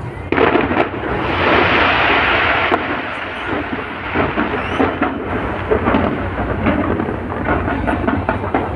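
Aerial fireworks going off in rapid succession: a dense run of booms and sharp cracks over a continuous rumble, with a louder stretch of crackle about a second and a half in.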